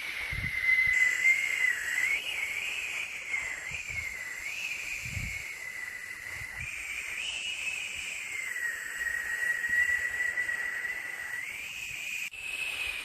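White-noise track for baby sleep: a steady hiss with a high whistling tone that wavers slowly up and down in pitch. The sound shifts abruptly about a second before the end, like a splice in the loop.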